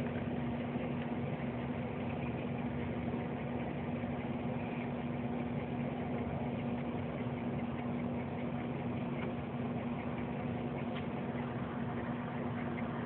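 Steady background hum with one constant low tone, unchanging throughout.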